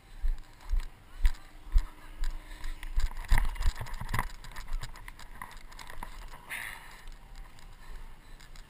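Footsteps running over grass, with wind and handling noise on a handheld GoPro action camera. Uneven thumps come about twice a second for the first few seconds, then it settles into a quieter rustle.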